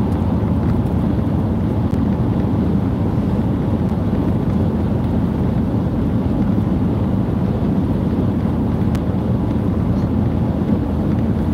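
Steady road and engine rumble heard inside the cabin of a van on the move, even and unchanging throughout.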